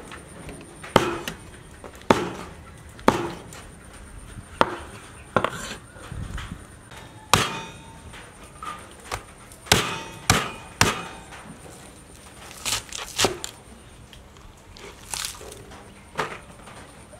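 A heavy cleaver chopping on a thick round wooden chopping board, about a dozen separate sharp strikes at uneven intervals, roughly a second apart. It cuts through raw chicken pieces and then through a bundle of long green vegetable stems.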